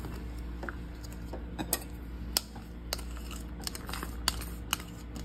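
Chopped onion tipped from a small glass bowl onto soft vada batter, with several sharp glassy taps as the bowl is knocked and tapped to shake out the last pieces. The loudest tap comes about two and a half seconds in, over a steady low hum.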